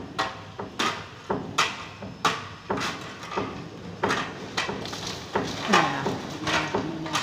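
Sharp knocks repeating about twice a second, each with a short ring, from tool work on a metal pipe clamp fitted around a PPR pipe. Near the end a voice hums or calls briefly under the knocks.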